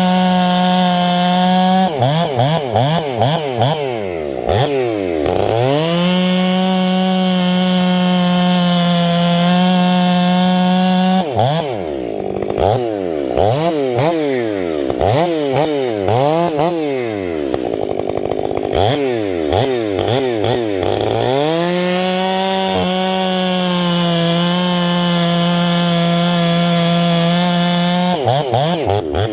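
Stihl 500i two-stroke chainsaw with an 8-pin sprocket, held at steady high revs in three long stretches, with the throttle rising and falling rapidly between them.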